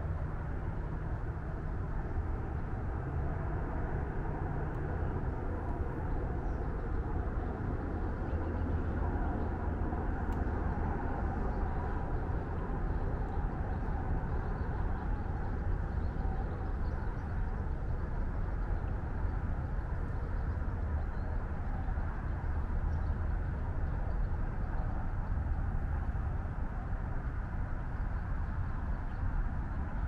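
Steady, deep rumble of highway traffic, an unbroken drone with no single passing vehicle standing out.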